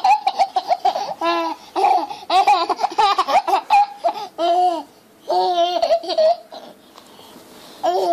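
Baby laughing hard in repeated high-pitched bursts, with a short break about five seconds in and a quiet stretch of about a second near the end before the laughing starts again.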